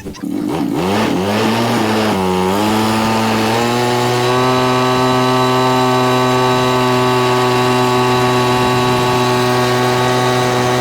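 Motorcycle engine driving a homemade boat, revving up with a brief dip in pitch, then running steady at a constant high speed.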